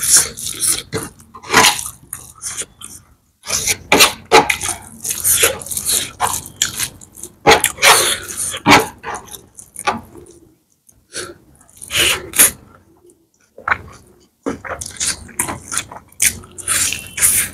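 A person chewing and lip-smacking close to the microphone while eating rice and chicken curry by hand. The clicky mouth sounds come in irregular bursts, with two short pauses a little past the middle.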